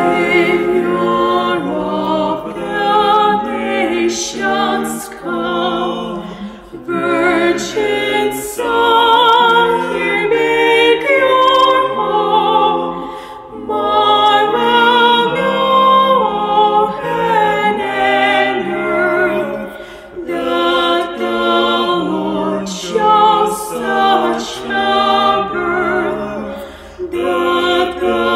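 Mixed vocal quartet of two women and two men singing a slow sacred song in harmony, with vibrato. The lines are held in long phrases with short breaths between them.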